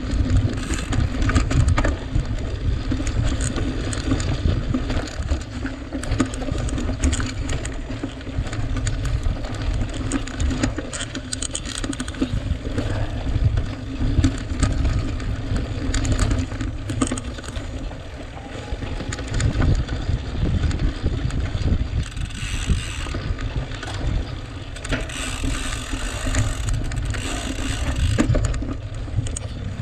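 Cyclocross bike ridden at race pace over rough ground, with a constant low rumble of wind on the microphone and frequent rattles and clicks from the bike. A couple of hissier stretches come in the last third.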